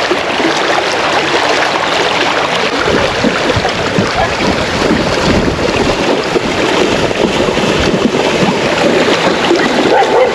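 Shallow river water rushing and splashing right at the microphone, with wind buffeting the microphone and a deep rumble joining from about three seconds in.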